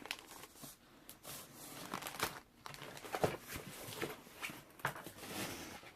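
Rustling and light clicks of crafting paper and small dies being handled and set out, in short irregular bursts.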